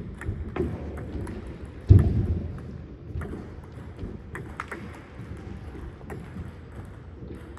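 Scattered sharp clicks and knocks over a low rumble, with one heavy thump about two seconds in.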